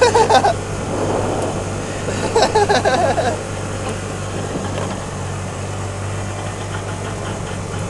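Golf cart driving along a paved road: a steady low hum from the drive with wind and tyre noise. Brief voices break in at the start and again about two and a half seconds in.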